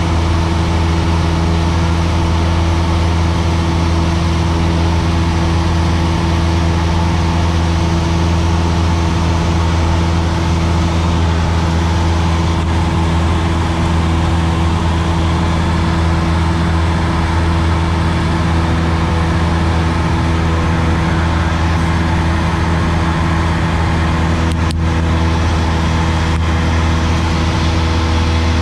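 Single-engine light aircraft's piston engine and propeller droning steadily in flight, heard inside the cabin.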